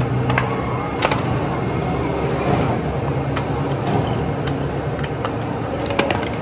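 Steady low vehicle engine hum and road noise, with a few scattered sharp metallic clinks of tools on the truck's wheel hub.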